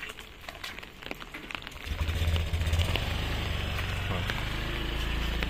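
A motorcycle engine comes on suddenly about two seconds in and then runs steadily with a low hum, over a faint patter of drizzle and dripping water.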